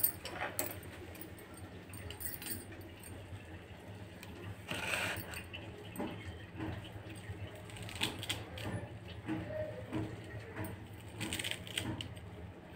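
Light clinks and soft handling noises as fresh coriander leaves are picked by hand over a steel container, with bangles clinking on the wrists. A sharper handful of clicks comes about five seconds in, all over a faint low hum.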